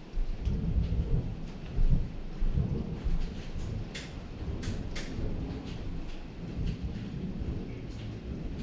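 Thunder rumbling during a hail storm, loudest in the first two seconds and then carrying on lower, over a steady wash of rain, with a few sharp taps of falling precipitation striking hard surfaces about four to five seconds in.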